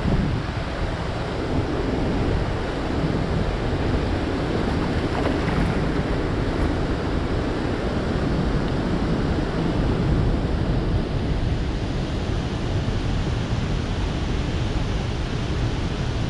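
Steady rush of water released through dam floodgates and churning around a small boat, mixed with wind buffeting the microphone.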